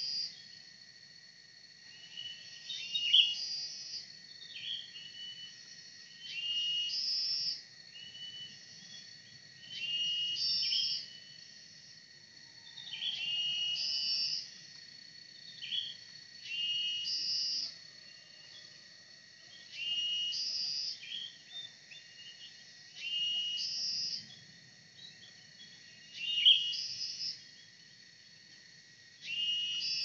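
Cucak ranting lure call: a short phrase of quick chirps ending in a higher whistled note, repeated evenly about every three and a half seconds. A steady high insect drone runs underneath.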